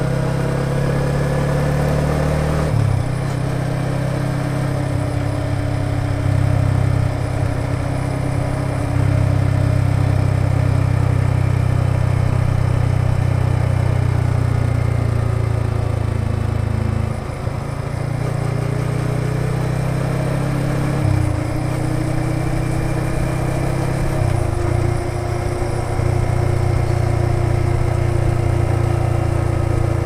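Yamaha XSR 155's single-cylinder four-stroke engine running as the motorcycle is ridden along the road. The revs drop and pick up again a few times: once about three seconds in, and briefly a little past halfway. They rise slowly over the last third.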